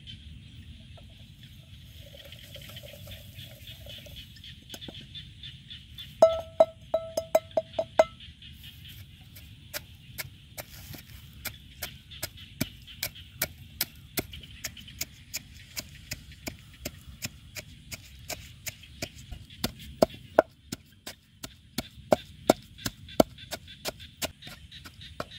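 Wooden pestle pounding chilies, garlic, lime and salt in a wooden mortar: a steady run of dull knocks, about three a second, starting around six seconds in. The first few knocks are louder and ring sharply.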